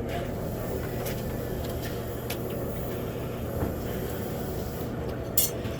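Steady low mechanical drone with a constant hum, broken by a few sharp clicks, the last and loudest near the end.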